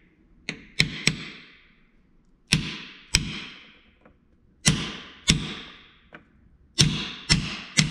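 Hammer striking a pin punch, about eleven blows in uneven pairs and threes, a few of them lighter, each ringing briefly. It is driving the pin out of the lower shaft of a Bennett trim tab actuator, and the pin has not yet come free.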